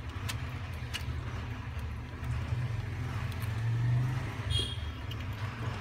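Steady low rumble of motor-vehicle engines, with a few faint clicks near the start and a brief higher sound about four and a half seconds in.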